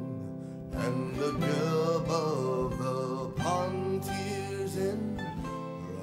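Acoustic folk music with guitar, and a melody line that slides up and down in pitch.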